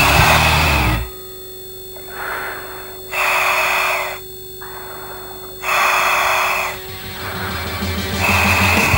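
A commercial diver breathing through a surface-supplied diving helmet, heard over the helmet communications: rushing breaths of about a second each, roughly every two and a half seconds, over a faint steady hum.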